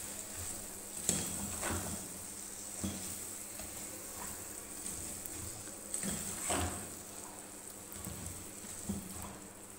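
Sliced okra and tomato sizzling softly in a metal pot while a spatula stirs it, scraping and knocking against the pot several times at an uneven pace.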